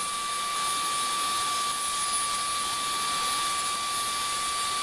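Table saw running steadily at speed with a constant high whine over a hiss while a strip of 12 mm plywood is ripped along the fence.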